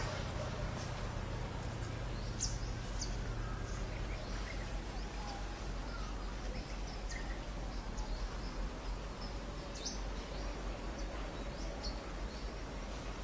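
Outdoor ambience: short, high bird chirps scattered throughout, over a steady low background rumble.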